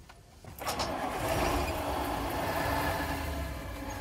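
Vintage Scania truck's diesel engine starting with a click about half a second in, then running steadily.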